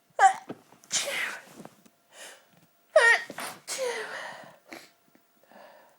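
A woman sneezing twice, about three seconds apart, from her allergy to dust. Each sneeze is a sharp, pitched burst that falls in pitch, followed by a breathy rush of air.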